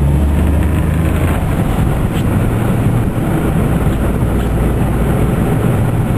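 Cabin noise inside a 1997 Geo Metro on the move: the engine's low hum over steady tyre and road noise. The engine hum drops away a little over a second in, leaving mostly road noise.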